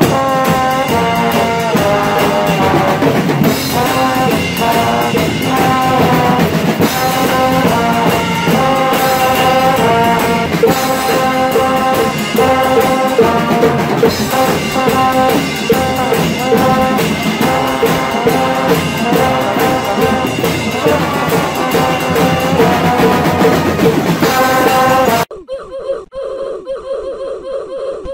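Pep band brass playing a tune, trombones loud and close, with drums keeping a steady beat. About 25 seconds in it cuts off abruptly and a quieter, different sound takes over.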